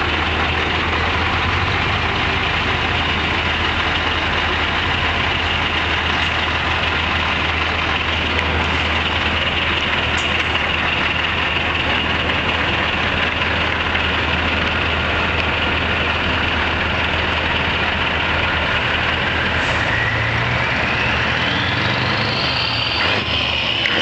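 Scania V8 truck engines running at low speed as the trucks pass close by, a steady deep sound. About twenty seconds in, a whine rises steadily in pitch over a few seconds.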